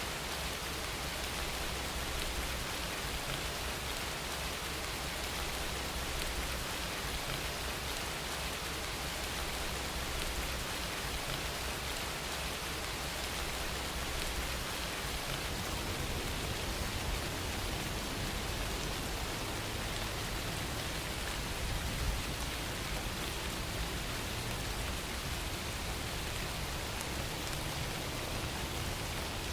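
Steady rain falling, an even, continuous hiss of many drops.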